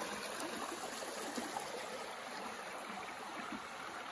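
A river's water flowing, an even, steady rushing.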